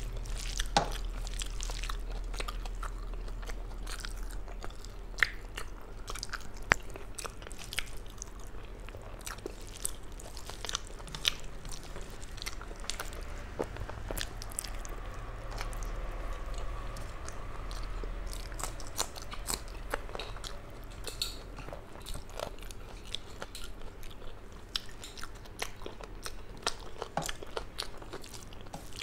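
Close-up eating sounds of a woman eating rice by hand: chewing with many irregular sharp mouth clicks and smacks, along with her fingers squishing and mixing rice on a steel plate.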